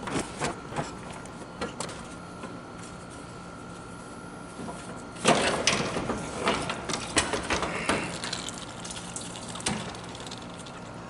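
Knocks and clatter as a car's radiator and cooling fan assembly are worked loose and lifted out, with a sudden louder burst of handling noise about five seconds in and irregular knocks after it.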